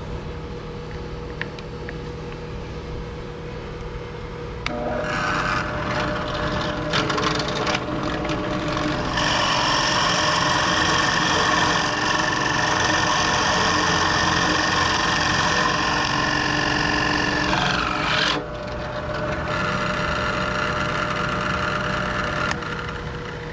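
Ryobi drill press running with a 3/4-inch bit, its motor humming steadily. About five seconds in the bit starts boring into the workpiece, and the cutting is loudest through the middle. It drops off sharply, resumes more lightly, and near the end the motor runs on alone. It cuts easily, without effort.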